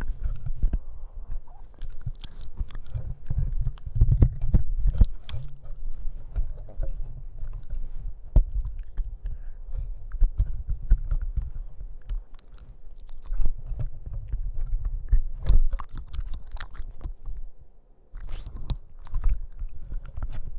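Boston Terrier puppy chewing and gnawing on a corded black plastic object: a dense run of clicks and crunches over a dull low rumble, with a brief lull near the end.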